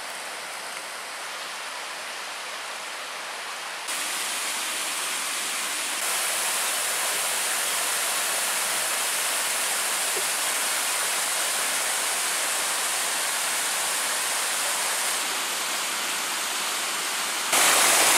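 Small river rushing over rocky cascades and rapids, a steady hiss of water that gets louder in sudden steps about four and six seconds in and again near the end.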